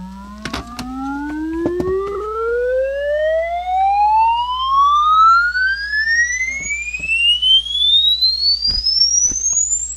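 Cassette test-tone sweep playing through a portable boombox's speaker: a single tone with faint overtones that rises steadily and smoothly from a low hum to a high whistle. A steady low mains-type hum runs underneath, and there are a few sharp clicks of handling.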